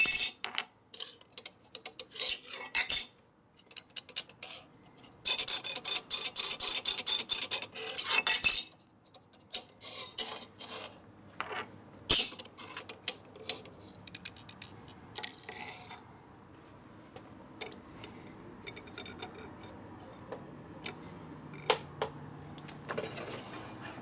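Metal clinking and rattling: scattered sharp clicks, a dense run of rapid clatter from about five to eight and a half seconds in, then quieter occasional ticks.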